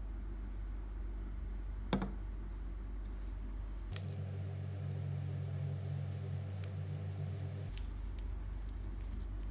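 Steady low hum of room noise, with a single sharp knock about two seconds in as the plastic slime tub is set down on the table, and a few faint light clicks later on.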